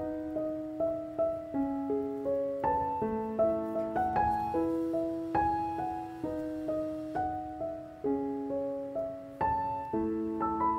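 Background piano music: a melody of struck notes, each fading after it sounds, over slower held lower notes.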